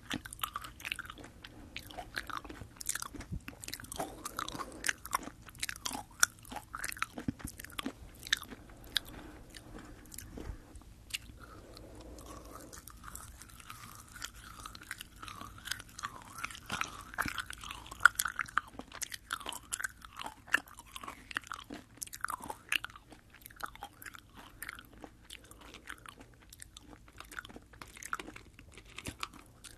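Close-up chewing of soft sugar-coated Fini gummy jelly candy: irregular wet, squishy mouth clicks and smacks, recorded close to a binaural microphone.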